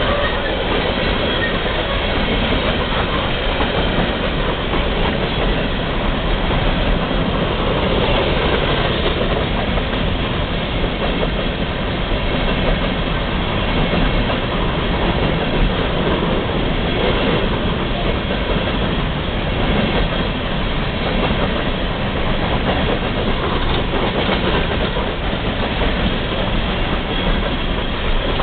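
Open-top hopper cars of a freight train rolling past at track level, with a steady, unbroken rolling noise of steel wheels on the rails.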